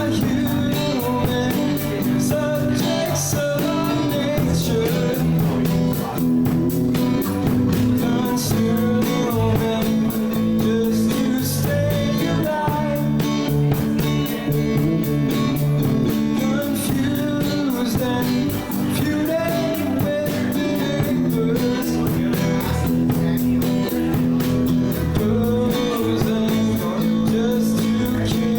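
Live rock band playing a song: guitar over a steady drum beat.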